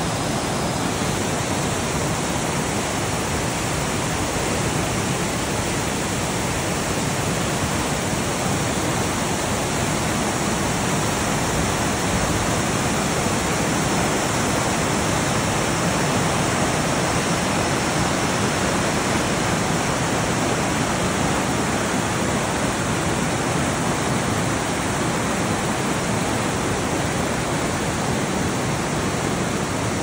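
Swollen mountain river rushing through white-water rapids over boulders: a loud, steady rush of water.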